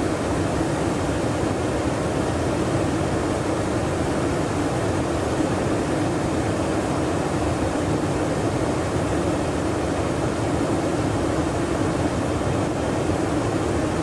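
River rapids: whitewater pouring over rock ledges, a loud, steady rush of water with no breaks.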